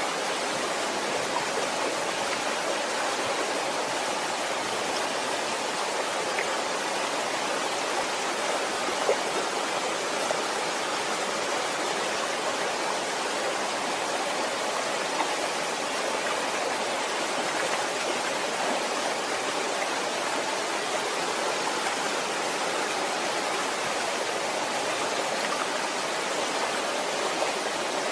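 Waterfall: water falling and rushing in a steady, even hiss, with a few faint splashes standing out now and then.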